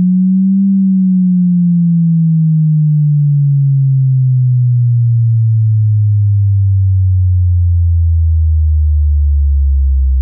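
Subwoofer test tone: a loud, low sine tone that rises briefly, then sweeps slowly down into deep bass, pulsing evenly as it goes.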